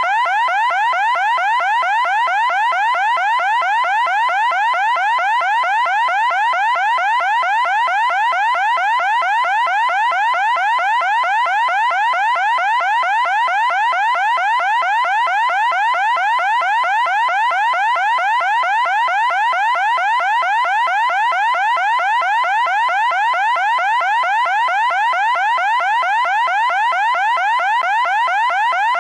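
Loud electronic siren tone, a fast train of identical rising sweeps, about four or five a second, repeating without a break.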